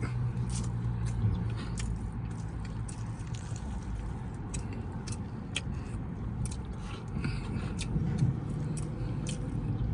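Someone biting into and chewing a fried chicken sandwich, with scattered crisp crunching clicks, over a steady low hum.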